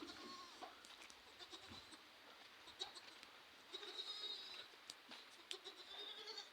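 Goats bleating faintly, with a couple of calls about four seconds in and again near the end, over scattered small clicks.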